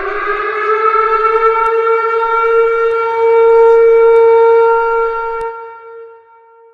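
Warning siren sounding one long, horn-like blast. Its pitch rises briefly, then holds steady, and it cuts off about five and a half seconds in, leaving a fading echo.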